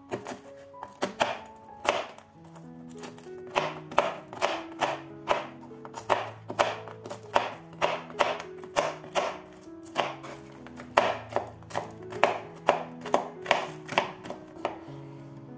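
Kitchen knife chopping walnuts on a cutting board: sharp, uneven knife strikes, several a second in short runs, stopping near the end. Background music plays underneath.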